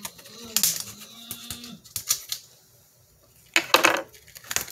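A run of sharp clicks and knocks from kitchen handling, with a louder rustling clatter near the end, as the pack of chicken is cut open. A faint, distant voice calls out during the first two seconds.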